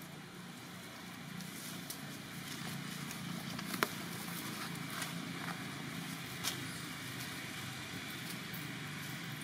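A steady low engine hum, with a few sharp clicks over it, the loudest nearly four seconds in.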